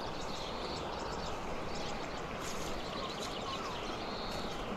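Shallow river water flowing steadily over a riffle, with a few faint bird chirps.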